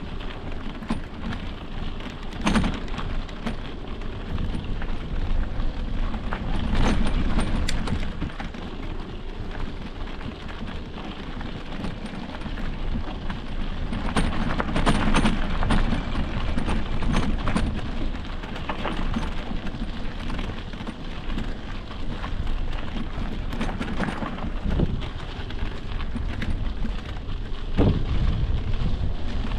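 Riding noise from an electric mountain bike on a dirt trail: a steady rumble of wind and tyres on the microphone, with scattered sharp knocks and rattles.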